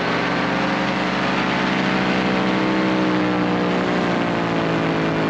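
Top 80 paramotor engine running under power in flight, driving its 140 propeller. Its pitch rises slightly and eases back.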